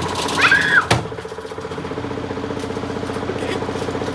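Samsung washing machine running with heavy bricks in the drum: after a click about a second in, a steady motor hum with a fast, even pulsing sets in.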